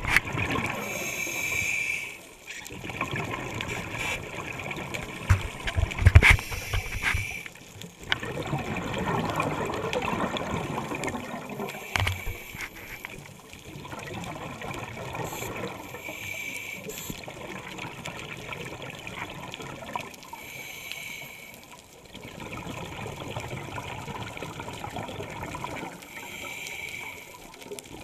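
Scuba diver breathing through a regulator underwater: a short hiss of inhalation about every five seconds, each followed by a longer bubbling rush of exhaled air.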